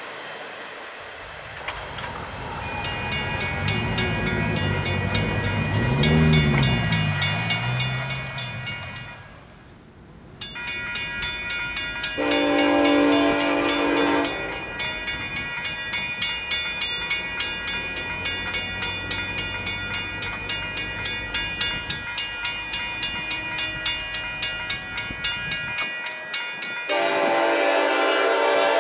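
A diesel train passes, its locomotive engine running loud and shifting in pitch. Then comes a steady rhythmic clicking of wheels over rail joints, and the locomotive horn sounds twice, each blast about two seconds long.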